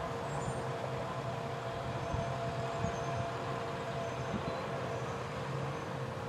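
Front-loader garbage truck's diesel engine running steadily, with a steady hydraulic whine as its arms lower the forks toward a dumpster.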